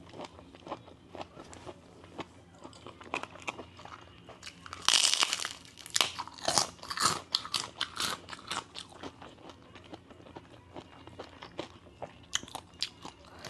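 A person biting and chewing crunchy food, Thai papaya salad with raw vegetables, in a run of crisp crunches. The loudest crunching comes about five seconds in and lasts a few seconds.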